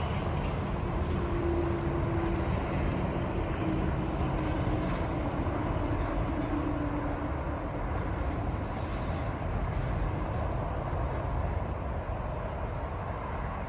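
A lone CSX diesel locomotive running light: a steady low engine rumble with a faint droning tone that dips slightly in pitch over the first several seconds.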